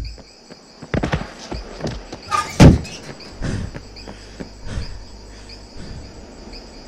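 Night-time crickets chirping in a steady pulsing trill, with a series of dull thumps over it, the loudest about two and a half seconds in.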